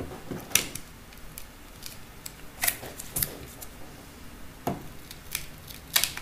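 A handful of sharp clicks and small crackles, irregularly spaced, as gloved fingers flex and pry the cracked display of a Samsung Galaxy S5 away from the phone's frame while the adhesive still holds firmly.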